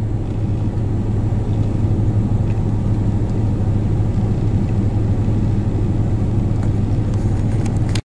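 Steady low rumble of an idling vehicle engine, even throughout, cutting off abruptly at the very end.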